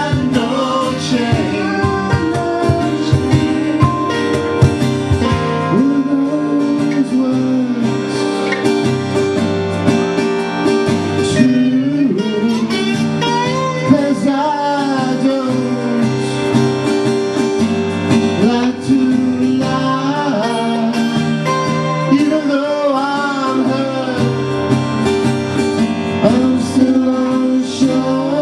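Live band music: guitar over steady sustained chords, with a gliding, bending lead melody and no words sung.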